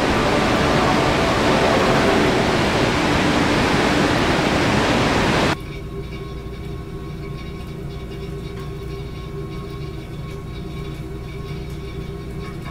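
Waterfall whitewater rushing, a dense even noise that cuts off abruptly about five seconds in. A quieter low rumble with a steady hum follows.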